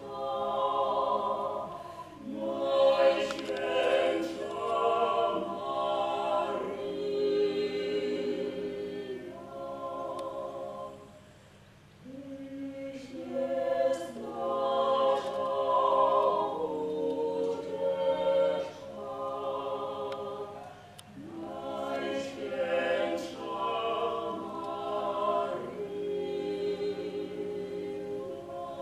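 Small vocal ensemble singing a sacred choral song a cappella, in long held phrases, with a brief pause about eleven seconds in.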